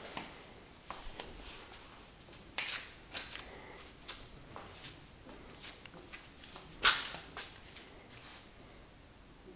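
Scattered light clicks and knocks with faint rustling, the loudest a sharp knock about seven seconds in.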